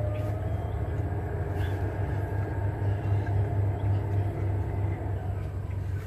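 A steady low rumble like a motor running, unchanging throughout, with a few faint thin whistling tones above it.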